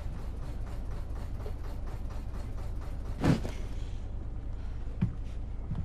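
Steady low hum of room tone, with a soft thump and rustle about three seconds in and two light knocks near the end.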